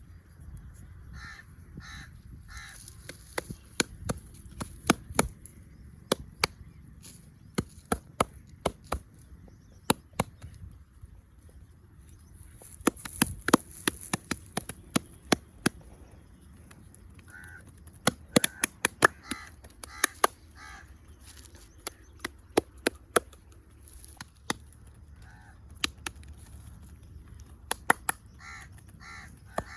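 Sharp, irregular hand slaps and chops struck during a head and shoulder massage, sometimes in quick rapid runs. Crows caw several times in short calls.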